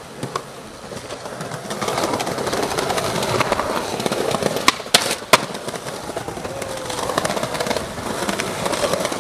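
Skateboard wheels rolling over stone paving slabs, with sharp clacks of the board on the ground: one just after the start and two in quick succession about five seconds in.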